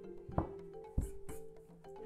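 Light background music with mallet-like tones, over which two sharp knocks sound about half a second apart near the start.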